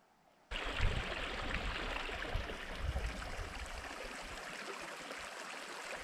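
River water running over rocks, a steady rushing that starts abruptly about half a second in, with irregular low rumbles underneath.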